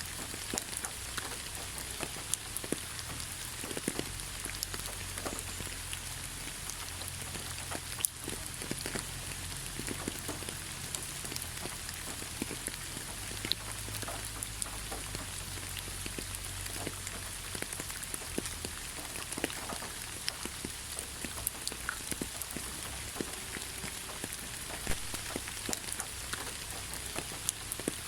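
Steady rain falling on leaves, with a constant high hiss and many separate drops pattering and ticking, plus a low rumble underneath.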